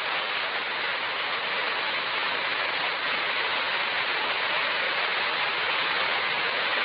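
Steady, unbroken hiss of background noise, even in level, with nothing else over it.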